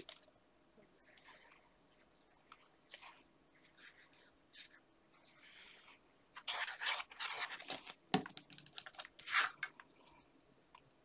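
Sheets of cardstock being handled: picked up, flexed and slid over each other and the mat, rustling and scraping, busiest from about six and a half to ten seconds in, with a light tap just after eight seconds as a piece is set down.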